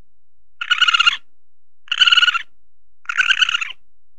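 Three short trilled animal calls, each about half a second long and a little over a second apart.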